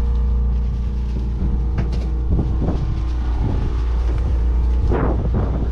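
A boat's engine running steadily, giving a constant low drone with a steady hum above it.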